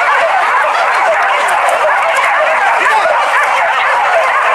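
A pack of village hunting dogs barking and yelping all at once in a dense, unbroken chorus.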